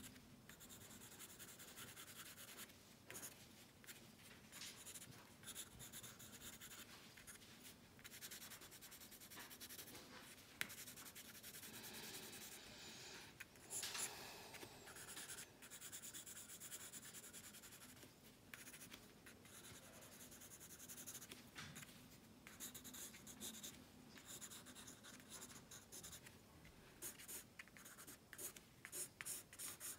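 Pencil scratching on paper in faint, quick shading strokes, with a run of short rapid strokes near the end.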